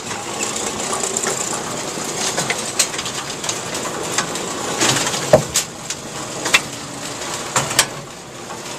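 Brunswick pinsetter running through a respot cycle: steady machine clatter with a series of sharp knocks. The loudest comes about five seconds in, a thud as the deck comes down and the tops of the pins hit the deck pads.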